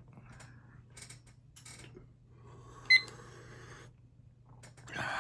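Faint rustling and handling noises, with one sharp click and a brief high ping about three seconds in, and louder noise rising near the end.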